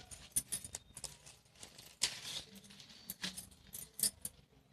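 Packaging of a boxed beard trimmer being handled, giving scattered light clicks and taps with a brief rustle about two seconds in.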